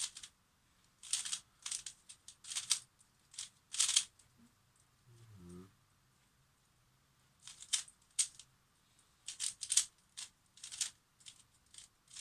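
A plastic Pyraminx puzzle, freshly lubricated with Citrea, being turned quickly by hand: short rasping clicks of its pieces sliding, in quick clusters with a pause near the middle. A brief low hum comes about halfway through.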